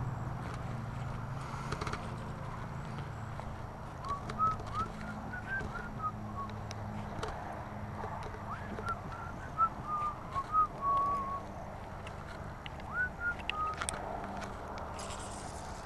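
A bird giving short whistled chirps in scattered bursts, starting a few seconds in and stopping near the end, over a steady low hum.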